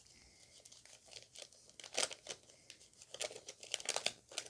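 Foil booster pack wrapper crinkling in short, irregular crackles as trading cards are slid back into the opened pack, with a louder cluster near the end.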